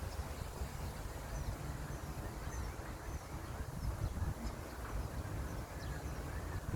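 Wind buffeting the microphone as a low, gusty rumble, with a few faint, short bird chirps high above it.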